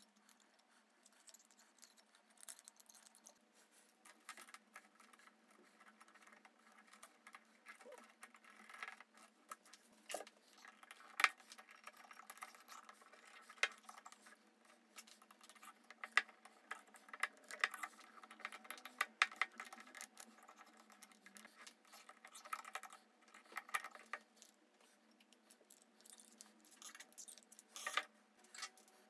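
Faint, irregular clinks, taps and scrapes of a thin metal wire tool and small wooden pieces against the inside of a glass bottle, with a somewhat louder click near the end.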